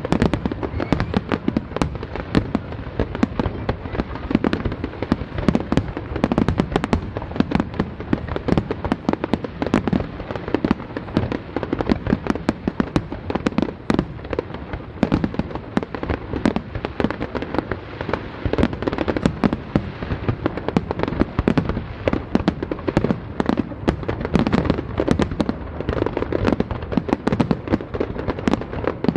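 Fireworks display: a dense, continuous barrage of shells bursting, many sharp bangs every second without a break.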